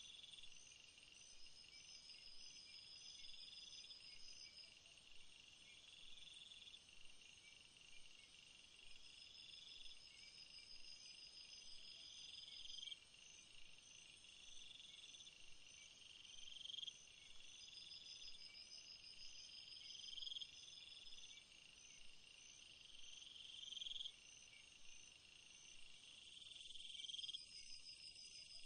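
Faint night-time jungle insect chorus: a steady high trill, with one call that swells and cuts off sharply about every three and a half seconds and a faster pulsed chirping above it that comes and goes every eight seconds or so.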